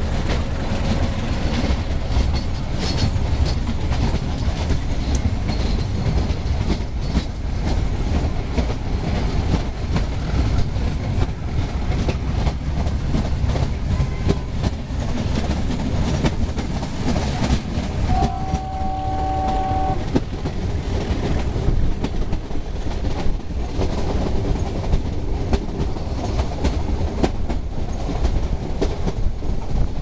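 Meter-gauge train with a steady low diesel rumble and repeated wheel clatter over rail joints. A multi-tone horn sounds once for about two seconds, around eighteen seconds in.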